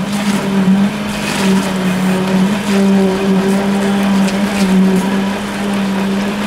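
Electric poker vibrator running in wet concrete, a steady buzzing hum whose pitch wavers slightly as it works the slab.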